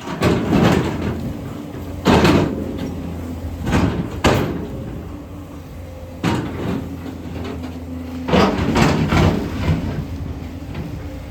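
JCB 245 HD LR long-reach excavator running steadily while its bucket scrapes and knocks against rock, a sharp scrape or knock every second or two.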